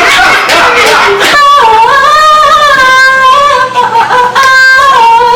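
Loud high-pitched solo singing: after about a second of overlapping voices, one singer holds long sustained notes that slide up and down in pitch.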